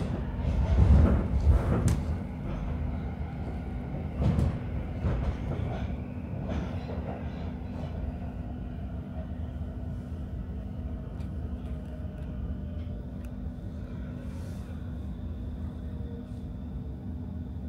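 Stockholm metro train heard from inside the car as it comes into the station: low rumble with clattering knocks from the wheels and running gear for the first several seconds, dying away as it slows to a stop. After that there is a steady hum of the standing train's equipment.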